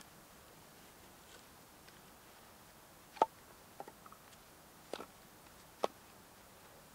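Short split firewood logs being set down onto a pile, wood knocking on wood in a few sharp, irregular clunks, the loudest about three seconds in.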